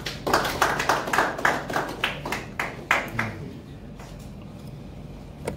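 A small group of people clapping for about three seconds, dying away; a single sharp tap near the end.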